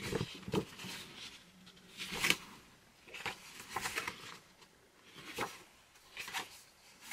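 Pages of a paper magazine being flipped and turned by hand: about half a dozen short rustles of paper.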